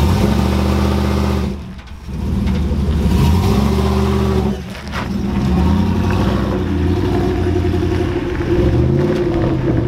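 Lifted Chevrolet Silverado pickup with a swapped-in LS1 V8 accelerating as it drives past and away. The engine note drops off briefly twice, about two and five seconds in, at gear changes.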